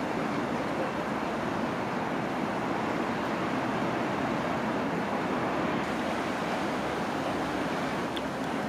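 Steady city street traffic noise, an even rush of road sound with no siren or horn standing out.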